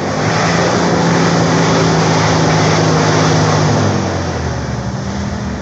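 Jeep Wrangler TJ engine held at high revs under load, with a loud rushing noise over it, easing off about four seconds in.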